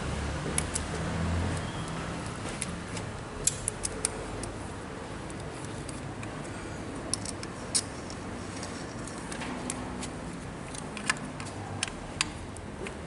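Sporadic light metallic clicks and taps of small tools and parts being handled while a steering column assembly is put together, over a steady low background hum.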